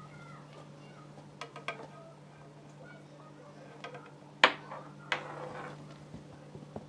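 A few sharp clicks and taps over a steady low hum, the loudest a single click about halfway through, followed by another a moment later.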